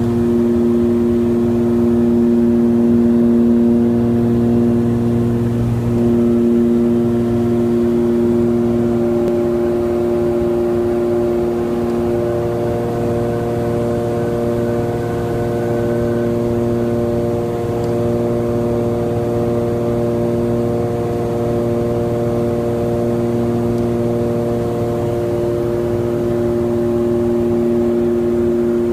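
Cabin drone of a Cessna 414A Chancellor's twin turbocharged Continental six-cylinder engines and propellers in level cruise flight: a steady hum with several steady pitched tones.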